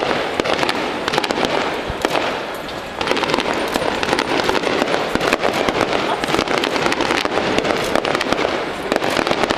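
Fireworks display going off: a dense, rapid crackling of many small bursts over a steady rumbling haze, getting louder about three seconds in.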